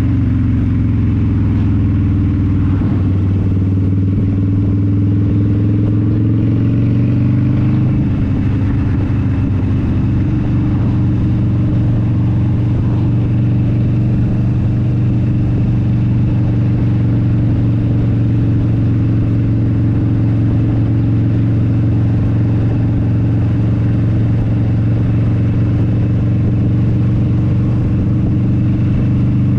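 Motorcycle engine running at road speed, picked up by a helmet chin-mounted GoPro, its pitch shifting over the first several seconds and then holding steady at cruise. A low wind rumble sits underneath.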